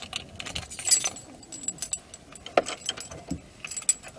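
Keys jangling: a string of light metallic clinks and jingles.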